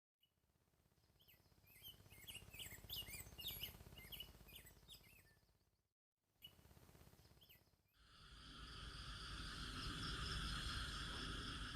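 Small birds chirping in quick, short calls for about six seconds; after a brief break, a steady, even buzzing drone sets in, like an insect chorus.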